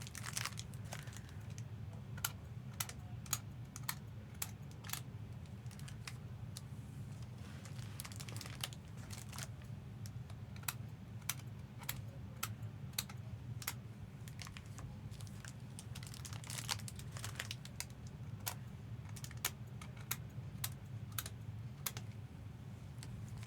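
Typing on a computer keyboard: irregular keystroke clicks, about one or two a second, with a steady low hum.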